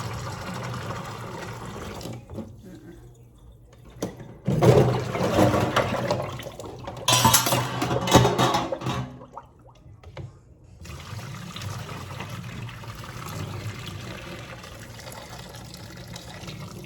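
Pasta cooking water being poured off from the pot into a kitchen sink without a colander, splashing and running, with two louder pours about four and seven seconds in.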